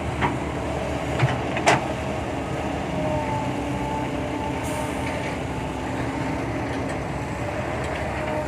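Kobelco SK120-5 Super excavator's diesel engine running steadily under load while digging, with a faint steady whine over it. A few sharp clanks sound in the first two seconds, the loudest about a second and a half in.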